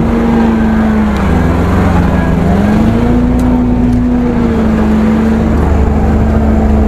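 UAZ Bukhanka van's four-cylinder petrol engine labouring steadily under load on a steep climb. Its note sags about a second and a half in and picks up again around three seconds in. It is running on three cylinders with a spark-plug lead off.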